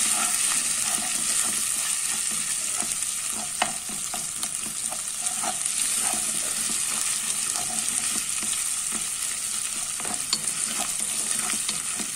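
Vermicelli and tomato paste frying in oil in a granite-coated nonstick pot, sizzling steadily while a wooden spoon stirs and scrapes through it. Scattered light clicks of the spoon against the pot, one sharper click about three and a half seconds in.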